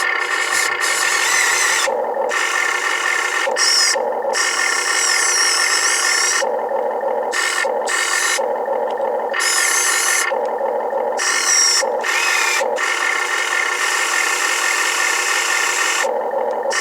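Full-metal RC excavator at work: small electric motors and metal gears whir in repeated bursts that start and stop as the controls are worked, the whine sliding up and down in pitch, over a steady drone.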